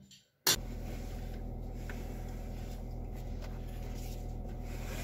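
A car's engine idling, heard from inside the cabin: a steady low hum that starts about half a second in.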